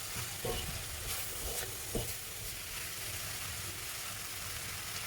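Vegetable filling of potato, carrot and green peas sizzling in oil in a pan on a high flame, with a few light knocks as it is stirred.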